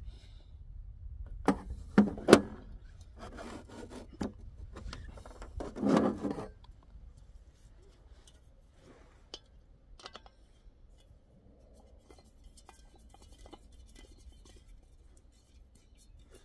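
Objects being handled, with a few loud rubs and scrapes in the first half and then only light scattered clicks and taps.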